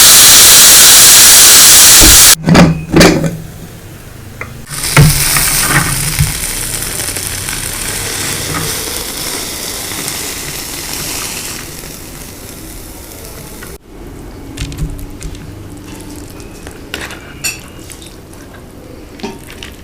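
Food sizzling in hot oil in a pan: a loud hiss at first, then a few knocks of the pan or utensils, and a new burst of sizzling about five seconds in that slowly dies down. Later the frying is quieter, with scattered clinks of utensils.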